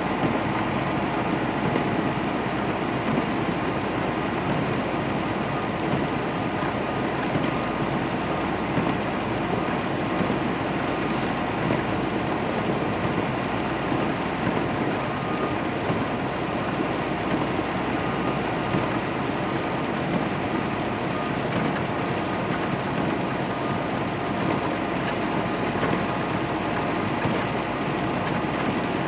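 Semi truck heard from inside the cab while cruising: a steady engine drone with a few constant tones over the hiss of tyres on a wet road.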